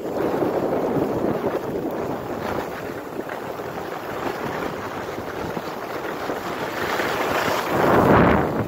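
Wind rushing over the microphone of a skier going down a groomed piste, mixed with the hiss of skis sliding on the snow. It swells louder near the end.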